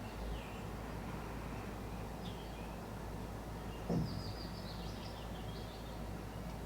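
Steady low background hum with faint, high chirping, and one short low sound, the loudest moment, about four seconds in.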